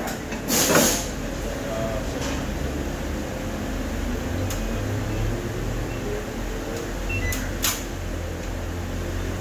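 A steady low machine hum, with a short hiss about half a second in and a sharp click near the end.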